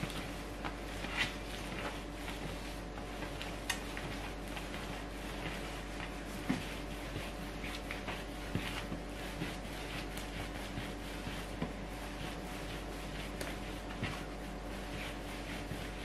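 Bread dough being kneaded by hand on a wooden table: soft rubbing and pressing, with a light knock now and then as the dough and hands strike the tabletop, over a steady low hum.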